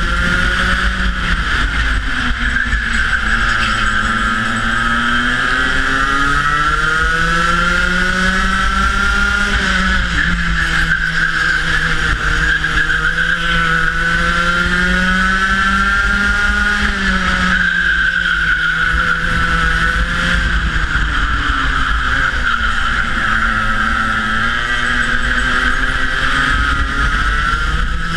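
Rotax Max 125cc two-stroke kart engine at racing speed, heard from onboard. The revs drop and climb again several times, falling into each corner and rising along the straights.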